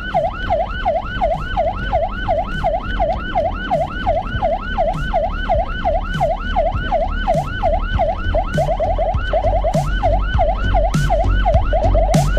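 Ambulance siren in a fast yelp, its pitch sweeping up and down about three to four times a second. A few times in the second half it switches briefly to a quicker, tighter warble. A low rumble runs underneath.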